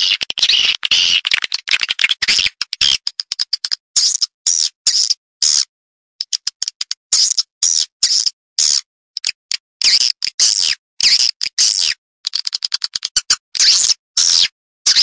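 Recorded swiftlet calls: rapid trains of sharp clicks alternating with short, high chirping twitters, broken by brief silent gaps. This is a swiftlet lure sound, played to call swiftlets into a nesting house.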